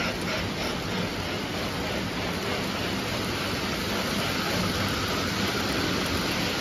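Lionel O gauge freight cars rolling along three-rail tubular steel track, a steady running noise of metal wheels on the rails with no breaks.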